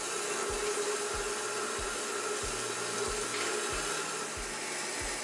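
Horizontal metal-cutting band saw cutting through a steel bar: a steady hiss of the blade in the cut over a constant hum.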